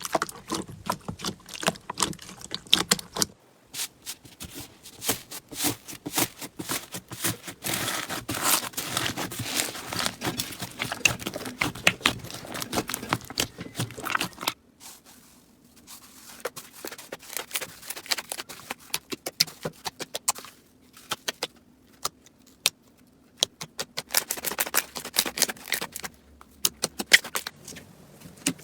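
Slime being squeezed and pressed by hand, making dense crackling clicks and pops. The clicking thins out about halfway through, then picks up again near the end.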